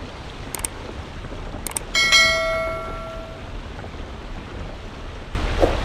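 Two mouse clicks and then a single bright bell ding that rings out over about a second and a half: the sound effect of a subscribe-button animation. Under it runs the steady wash of a car pushing slowly through floodwater, which grows louder near the end.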